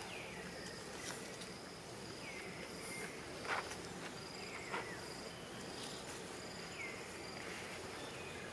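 Insects droning steadily on one high tone, with short falling calls recurring every couple of seconds over it.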